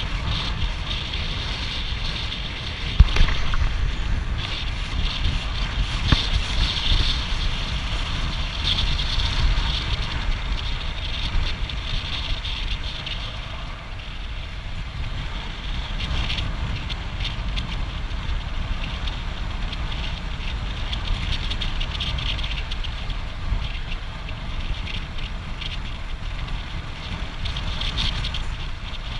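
Wind rushing over an action camera's microphone on a fast road-bike descent: a steady, loud rush with deep rumble. There is a single sharp knock about three seconds in.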